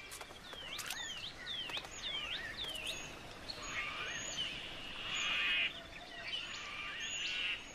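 Birds calling over a faint steady background: a run of five quick falling chirps, about two a second, then buzzier, rattling calls.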